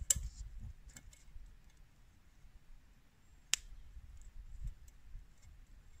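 Wood campfire crackling: a few scattered pops and snaps, the sharpest about three and a half seconds in.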